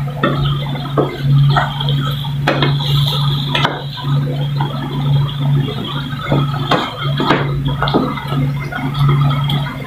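Wooden spatula stirring chicken pieces in a frying pan, scraping and knocking against the pan again and again, over a steady low hum.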